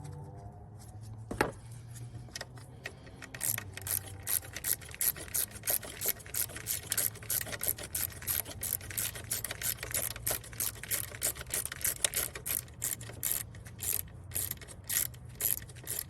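A socket ratchet clicking rapidly as the 10 mm bolt holding the canister purge valve is backed out. After a single click early on, the steady run of clicks starts about three seconds in and goes on for about twelve seconds.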